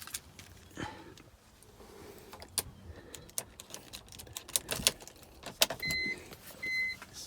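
Scattered sharp clicks and knocks, then about six seconds in the BMW E46's electronic warning chime starts beeping, two short beeps a little under a second apart.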